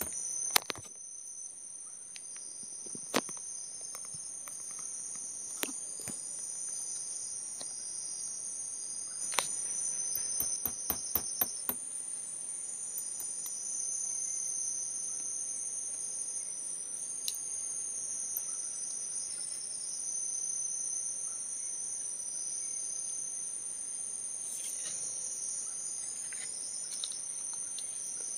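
Steady, high-pitched chorus of forest insects. A few sharp clicks and knocks sound over it, with a quick run of about a dozen ticks around ten seconds in.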